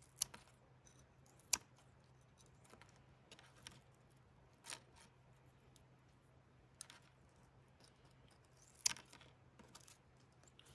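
A handful of isolated sharp clicks and taps, about five in ten seconds with the loudest near the start and near the end, over a faint steady low hum.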